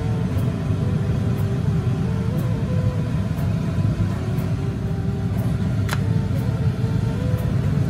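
A steady low rumble from the kitchen, with a faint flute melody over it and a single sharp click about six seconds in.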